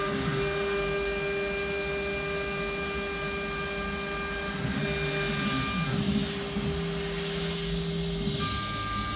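Homemade CNC router at work: the spindle runs at 24,000 rpm with a steady high whine, driving a 6 mm three-flute end mill. Under it the stepper motors buzz lower, changing pitch and stopping and starting as the axis moves change.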